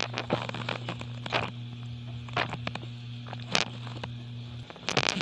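Scattered short crunches and mouth clicks of someone chewing puffed rice cake (ampaw) right at the microphone, in small clusters, over a steady low hum that stops shortly before the end.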